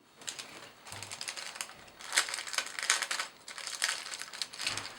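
Rapid clicking and rattling of small objects being handled on a tabletop, with some rustling, in irregular flurries.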